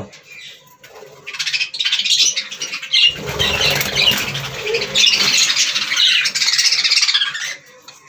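A colony of budgerigars chattering and squawking, a dense, continuous high-pitched twittering that starts about a second in and stops shortly before the end.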